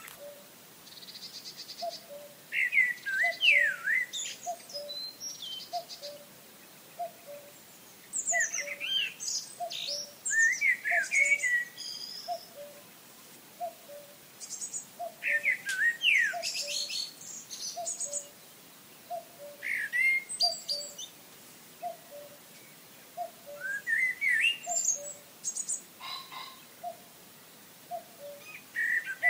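Songbirds singing in short bursts of quick, sliding whistled phrases a few seconds apart. Under them, a soft low note repeats evenly, a little faster than once a second.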